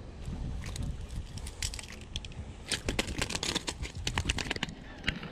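Rapid clicking and clattering of metal pliers, a hard plastic minnow lure and its hooks as the lure is worked out of a fish's mouth and dropped onto a concrete boat ramp, thickening into a dense flurry of clicks about halfway through.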